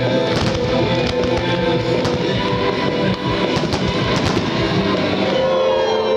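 Fireworks show: loud music accompanying it, with repeated sharp bangs of fireworks bursting over it.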